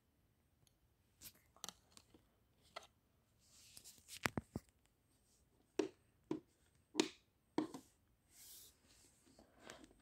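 Hands handling an iRobot Roomba 660 robot vacuum's plastic body: scattered clicks and knocks, with a quick run of sharp clicks about four seconds in. The robot's motors are not running.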